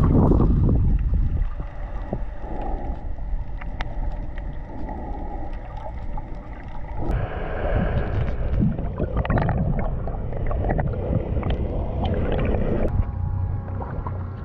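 Muffled underwater sound of a snorkeler diving for conch: a steady rush of water with bubbling and scattered sharp clicks.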